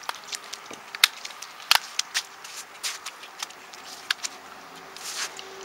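Steps on wet, muddy, slushy ground: scattered sharp clicks and squelches at uneven intervals, the sharpest a little after one second and just before two seconds.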